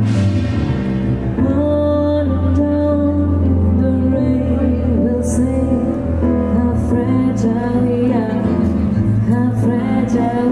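A woman singing with a handheld microphone, accompanied by piano sound played on a Nord Stage 3 stage keyboard.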